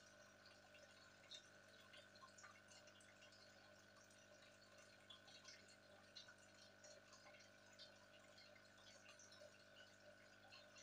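Faint bubbling of an aquarium air stone, scattered tiny pops and trickles over a low steady hum.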